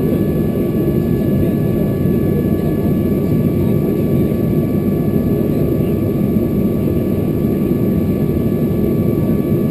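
Boeing 737-400 heard from inside the cabin: a steady, loud jet-engine drone with a rumble and several high, steady whining tones over it.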